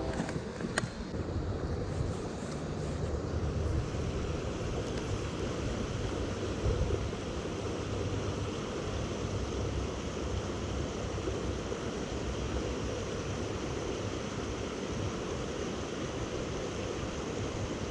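Steady rushing noise of creek water, with wind buffeting the microphone as a low rumble. There are a few light clicks in the first second.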